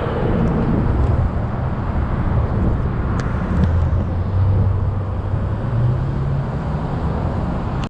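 Road traffic noise mixed with wind rushing over the microphone of a moving bicycle, with a vehicle's low engine hum rising about three and a half seconds in and fading a few seconds later.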